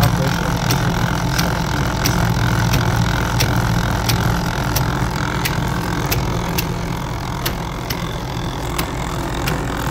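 A 'do nothing' gear machine running, its electric motor and gearbox turning steel shafts, spur gears, a chain and a timing belt. It makes a steady mechanical hum with a sharp regular tick about every 0.7 seconds.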